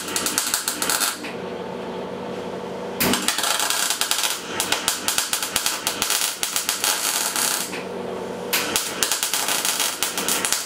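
Electric arc welding on a broken frame tube: the arc crackles loud and dense in short runs. It stops for about two seconds about a second in, starts again, and pauses briefly once more near the end, with a low steady hum between runs.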